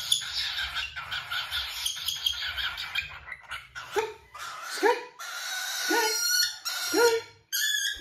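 Cockatiel chirping and calling over and over. From about halfway through come four short rising hoot-like calls, about a second apart.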